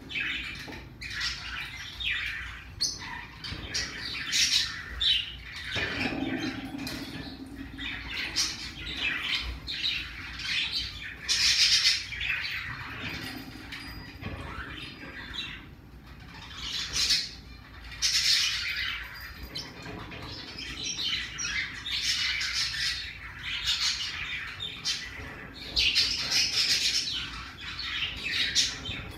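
Pacific parrotlet giving short, high chirps and squawks over and over, in clusters with brief gaps.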